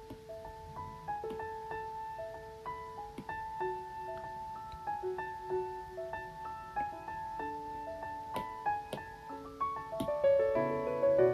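Soft background piano music: a slow melody of single notes over held lower notes, with a few faint taps in the second half.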